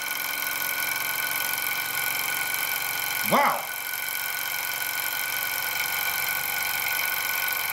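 Small model Stirling engine running fast, a steady mechanical whirr with a rattle that comes from the flywheels rather than the quietly moving pistons; the owner thinks a drop of oil would cure it. A short sound falling quickly in pitch cuts in about three seconds in.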